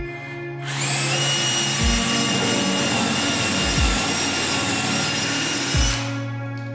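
Corded electric drill boring into wood at a steady speed, starting about a second in and stopping near the end. Background music with a slow beat plays underneath.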